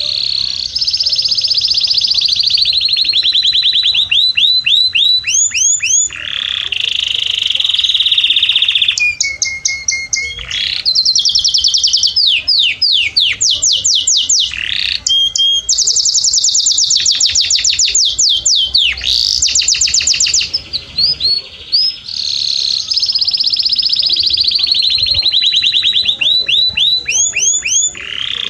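Domestic canary singing a long, unbroken song of rapid trills and rolls. Each phrase repeats one short note many times a second, then gives way to a different trill every second or two.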